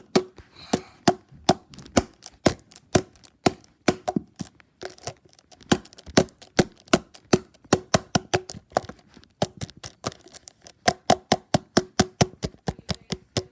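Rapid, repeated hard blows on a Gatorade bottle, about three to four a second, each a sharp knock with a short ringing tone. They cut off suddenly at the end.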